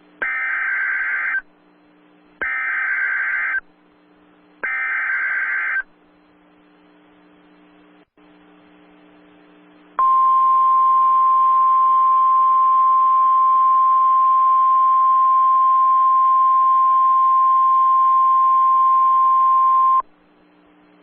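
NOAA Weather Radio Emergency Alert System signal: three short SAME data-header bursts about a second apart, then after a few seconds' pause the steady Warning Alarm Tone for about ten seconds, announcing a tornado warning.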